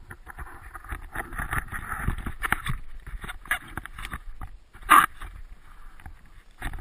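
Snowboard and boots shuffling through deep powder snow: an uneven run of crunching and swishing scrapes, with a sharp knock about five seconds in.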